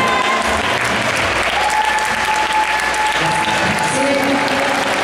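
Audience applause, a dense steady clapping that takes over as the dance music stops just after the start, with voices mixed in.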